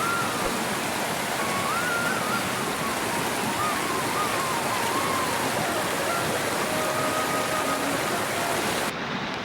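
Steady rush of water, an even dense hiss, with a faint thin wavering tone coming and going over it; the hiss turns duller near the end.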